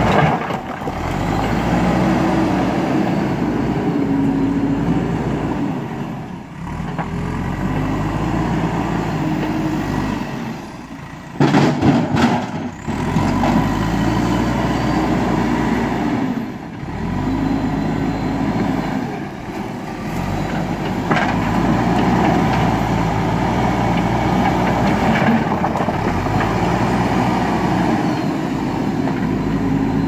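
JCB backhoe loader's diesel engine revving up and dropping back again and again as it works the front bucket into a pile of rocks and drives off loaded. A loud clatter of stones about eleven to twelve seconds in.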